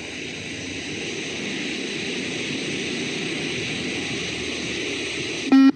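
Steady rushing hiss that slowly grows louder, then a single short electronic beep near the end: the beep-test signal marking the end of a shuttle run.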